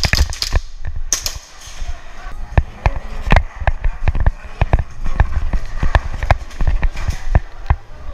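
Quick footsteps and gear knocking, heard close up from a head-mounted camera, with sharp airsoft gas-pistol cracks at the start and about a second in.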